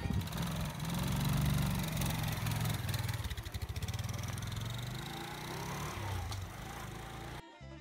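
Small step-through motorcycle carrying two riders pulling away: the engine revs up in the first two seconds, then fades as the bike rides off. The sound cuts off abruptly shortly before the end.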